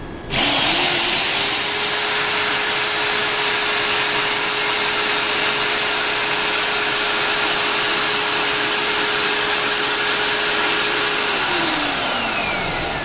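Electric drill with a paddle mixer stirring liquid in a plastic drum. The motor starts just after the beginning and whines up in pitch, runs at a steady speed, then slows with a falling whine near the end.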